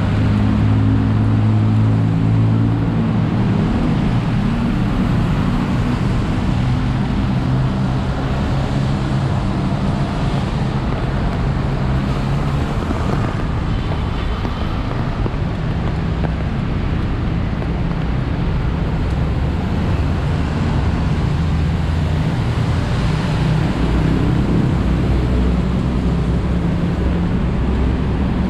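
Steady road traffic noise: vehicle engines running with the hiss of traffic, and a low engine hum that is strongest in the first few seconds and again near the end.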